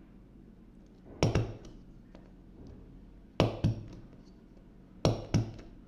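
An opened stapler being struck down to drive staples into the artwork, three times, each strike a sharp double clack about two seconds apart.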